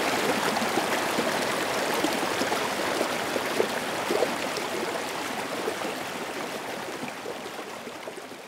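Small woodland stream tumbling over mossy rocks in a low cascade, a steady rush and splash of water that fades out over the second half.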